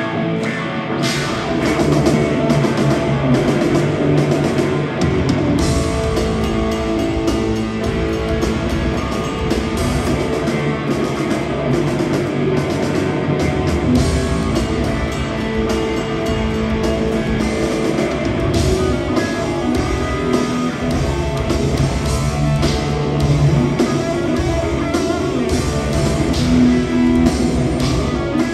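Live rock band playing: electric guitar over bass and a drum kit, loud and continuous.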